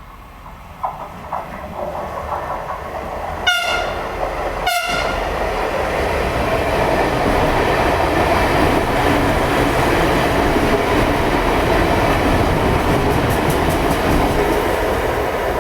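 A train approaches and sounds two short horn blasts about a second apart, then passes close by with a loud steady rumble of wheels on the rails.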